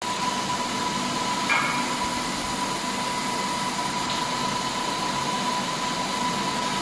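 Fiber laser marking machine running while it marks a machined aluminium motorcycle part: a steady hiss and hum with a constant high-pitched tone, and a brief chirp about a second and a half in.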